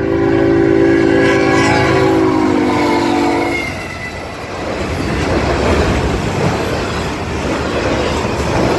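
Freight locomotive air horn sounding one long chord for about three and a half seconds, then the freight train's wheels rumbling and clacking over the rails as it passes.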